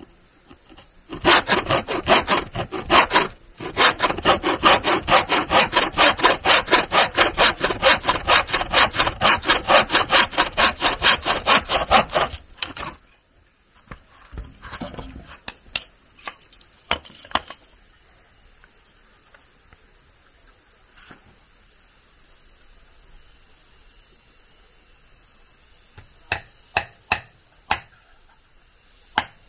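A hand saw cutting with quick back-and-forth strokes, about four a second, that stop after roughly twelve seconds. Insects keep up a steady high buzz throughout, and a few sharp knocks come near the end.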